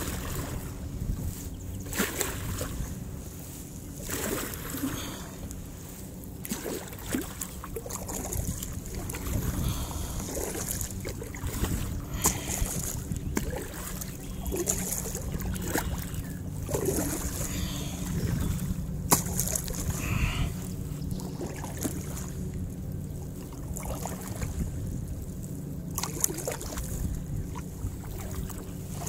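Kayak being paddled: the paddle blades dip and splash in the water every couple of seconds, over a steady low rumble.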